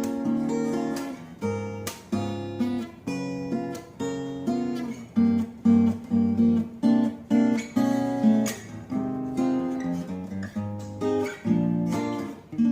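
Epiphone AJ-220SCE acoustic guitar (solid Sitka spruce top, mahogany body) strummed, playing a run of chords with a new strike every half second or so. A last chord is struck right at the end and left to ring.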